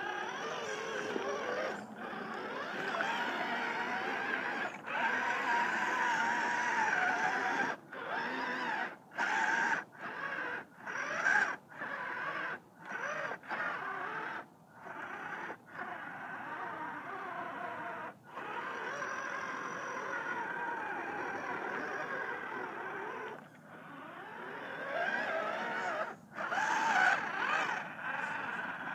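An RC crawler's electric motor and drivetrain whine as it churns its tyres through sticky mud, the pitch wavering with speed and load. Through the middle the throttle is pulsed on and off in a quick run of short bursts before steady driving resumes.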